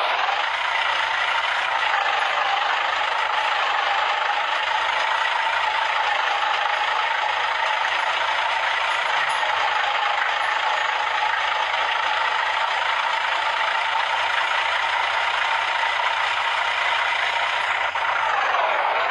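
Heavy road-construction machinery running steadily: a loud, noisy mechanical drone with a whine in it that dips briefly in pitch near the end.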